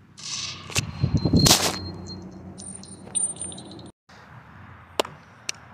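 Staged gunshot sounds: a quick burst of shots in the first two seconds, the loudest about a second and a half in, followed by a high ringing tone. After an abrupt cut near the four-second mark, faint background noise with a few sharp clicks.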